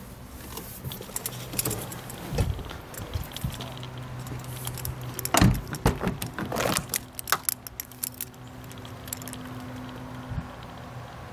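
Handling of a Jeep Wrangler Unlimited's doors: a loud clunk about five and a half seconds in, then a quick run of latch clicks and rattles as the rear door is opened, over a faint steady hum.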